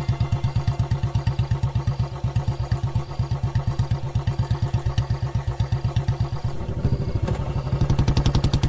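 Motorcycle engine running at a low, steady putter, its firing pulses even and fast, then picking up and growing louder near the end.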